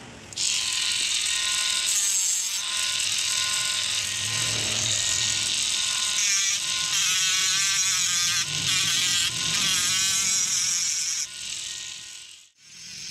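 Small handheld rotary tool with an abrasive disc running at speed and grinding the paint off a Nissin brake caliper: a steady high-pitched whine. It starts about half a second in, its pitch wobbles in the middle, and it stops about eleven seconds in.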